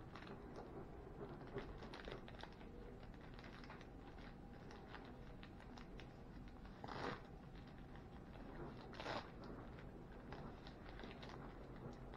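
Faint crinkling and rustling of a thin plastic tortilla bag as hands fumble at its top to open it, with two louder crinkles about seven and nine seconds in.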